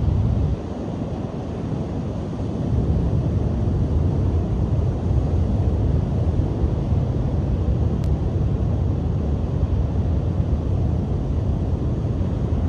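Strong cold wind buffeting the microphone with a low rumble, over waves breaking on a beach. The gusts ease about half a second in and pick up again a couple of seconds later.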